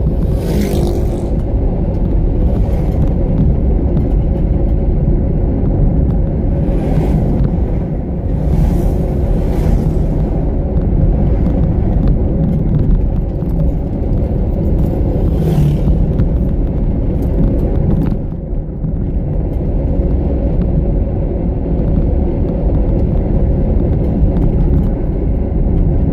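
Steady rumble of a car's engine and tyres, heard from inside the moving car on a hilly road. A few brief rushing sounds rise over it, one as a motorcycle passes close just after the start.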